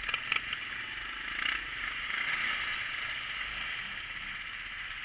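Steady rushing noise of an off-road side-by-side on the move, with a couple of short knocks just after the start and the noise swelling a little around two to three seconds in.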